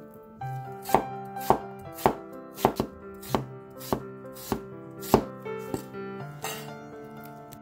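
Cleaver chopping peeled Chinese yam into slices on a wooden cutting board: about ten sharp knocks at an even pace, a little under two a second, over soft solo piano music.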